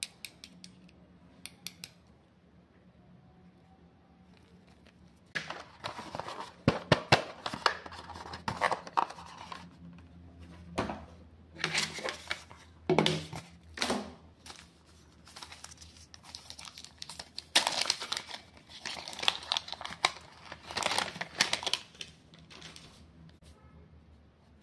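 Thin plastic protective wrap crinkling and tearing as it is peeled off a new smartphone. It comes in irregular bursts with a few sharp clicks, starting about five seconds in after a quieter stretch of small clicks.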